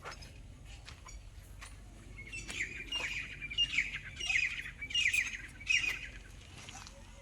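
A bird calling in about six quick bursts of harsh chirps, each note sliding down in pitch, from about two and a half seconds in to about six seconds.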